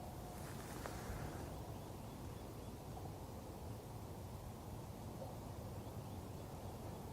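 Faint, steady outdoor background noise, mostly a low rumble, with a brief rustle about a second in.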